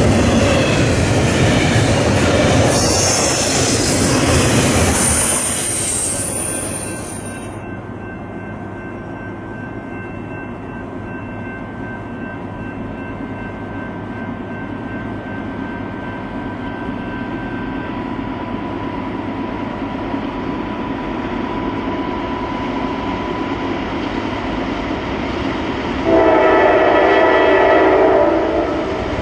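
Double-stack container train rolling past close by for the first seven seconds or so, its wheels and cars making a loud rumble with a brief high squeal about three seconds in. Then an approaching train rumbles steadily, slowly growing louder, and its locomotive sounds one horn blast of several notes together, about two and a half seconds long, near the end.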